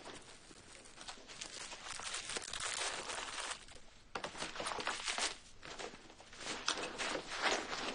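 Rustling and crinkling of a fabric pouch and papers being rummaged through at a desk, in irregular, uneven bursts.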